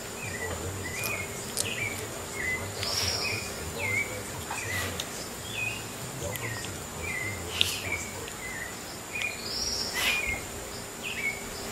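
A quick series of short, high chirping calls, with two longer arching calls higher up about three and ten seconds in, over a steady thin high tone.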